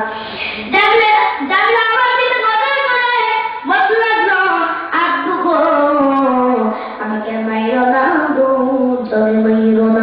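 A child's voice singing unaccompanied in a slow, melodic chant, with long held notes that slide in pitch and short pauses for breath between phrases.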